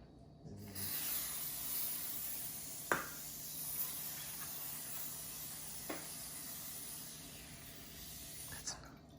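Aerosol can of coconut oil cooking spray hissing in one long steady spray, starting about half a second in and cutting off just before the end, with two light clicks partway through.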